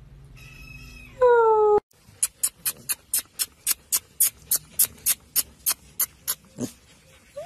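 A kitten gives one loud meow, falling slightly in pitch, about a second in. Then comes an even run of sharp clicks, about four a second, lasting some four seconds.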